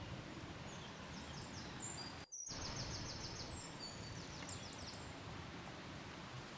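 Songbirds chirping and trilling in quick, high repeated notes over a steady outdoor background hiss, with a brief dropout a little over two seconds in.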